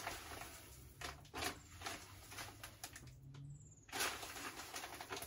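Faint rustling with a few light clicks and taps while flaked maize is weighed out into a stainless steel pot on a scale.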